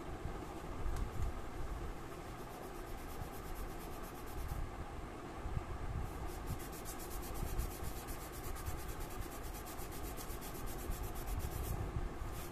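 A kneadable eraser rubbed back and forth over pencil marks on sketchbook paper, over a steady low background rumble.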